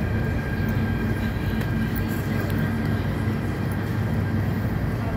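MTR Tung Chung Line electric train pulling into an underground station platform behind glass platform screen doors: a steady rumble of wheels and running gear with a low hum.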